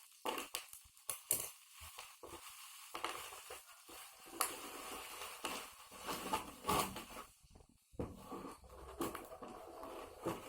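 Packaging being handled and opened: irregular rustling and crinkling with many sharp clicks and taps.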